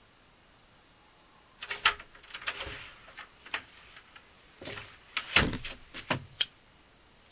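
A string of sharp knocks, clicks and clunks with short rustling noises between them, starting about a second and a half in and stopping about six and a half seconds in. The heaviest, deepest thump comes about five and a half seconds in.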